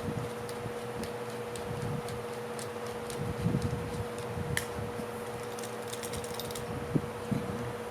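Scattered small clicks and taps of hand tools working on a golf cart carburetor as it is taken apart, with a sharper click about halfway through and another near the end, over a steady background hum.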